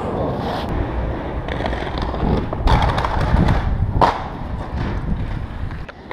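Inline skate wheels rolling on stone paving under a steady low rumble, with a sharp clack about two and a half seconds in and another about four seconds in as skates strike the stone.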